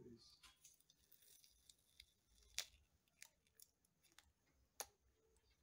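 Faint scattered clicks and light scrapes of a small screwdriver working the screws and plastic parts around the hard drive in an open HP EliteBook 840 G1 laptop, with two sharper clicks about halfway through and near the end.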